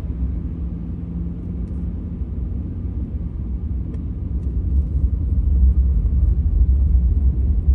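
Low, steady rumble of a truck driving on a snow-covered road, heard from inside the cabin: engine and tyre noise. It grows somewhat louder about five seconds in.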